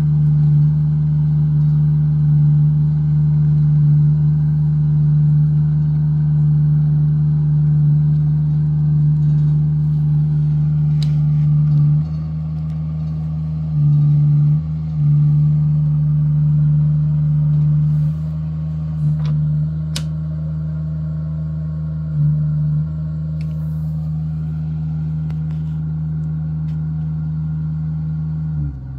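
Diesel engine of a tracked utility boom rig running steadily with a deep, even drone. Its level steps down partway through, rises briefly twice, and drops again near the end.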